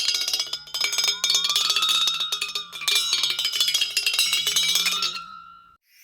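Rapid metallic clinking and ticking with bell-like ringing tones, some sliding slightly in pitch, that fades and stops about five and a half seconds in.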